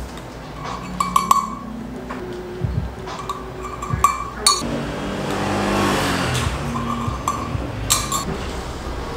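Metal spoon clinking and scraping against a small metal cup while caramel sauce is spooned into plastic cups of iced drinks, in small groups of clicks with a short ring. A soft rushing noise swells and fades in the middle.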